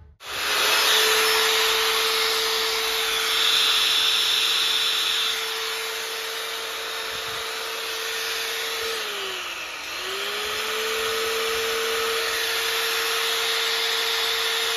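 MAL Xtra Premium 1050 W marble cutter's motor switched on and free-running with no cutting disc fitted: a steady whine over a rush of air. About two-thirds of the way in, the pitch sinks briefly and climbs back to full speed.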